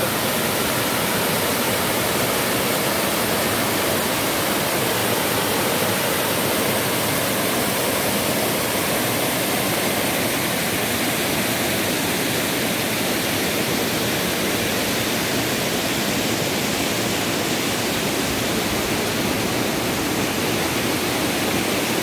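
Waterfall rushing over rock ledges: a steady, unbroken roar of falling and splashing water.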